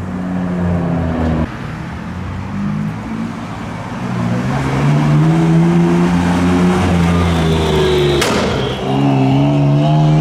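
BMW M3 F80's twin-turbo straight-six accelerating hard, its pitch rising and held high, then a sharp crack at a gear change about eight seconds in before it climbs again in the next gear. Another car's engine is heard in the first second or so.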